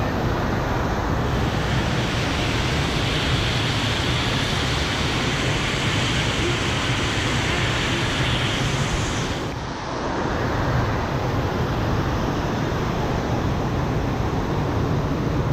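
Steady, loud rush of water from a FlowRider surf simulator, its pumped sheet of water pouring up the padded incline, with a brief dip about ten seconds in.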